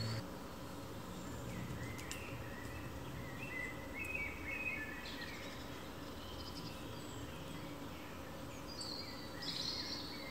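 Woodland ambience: a steady low background hiss with scattered short bird calls, a run of them a few seconds in and another burst near the end.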